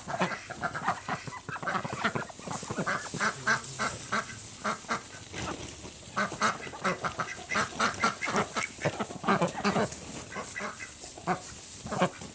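A group of domestic ducks quacking in a rapid, continuous chatter of short calls. The hens' quacks are mixed with the drakes' raspier calls, excited by the rustle of a mealworm bag.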